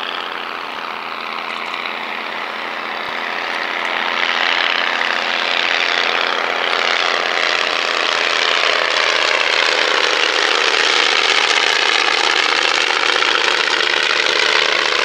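Three biplanes' piston engines running together in a formation flypast. The sound swells louder about four seconds in as they come low across the field, then holds steady.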